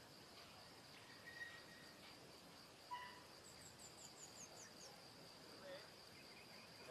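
Faint outdoor ambience: a steady high insect drone with scattered bird calls, including a quick run of about seven high, descending chirps just past the middle.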